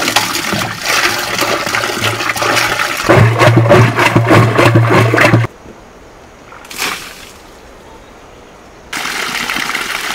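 Water poured from a plastic jerrycan into a wooden churn, getting louder about three seconds in and cutting off suddenly about five and a half seconds in. After a quieter gap, a steady rush of spring water running down a rock starts near the end.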